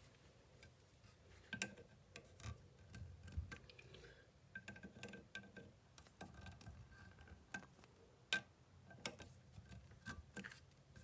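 Faint, irregular small metal clicks and taps, a few sharper than the rest, as pliers grip and turn drilled-out stripped scope base screws on a shotgun receiver.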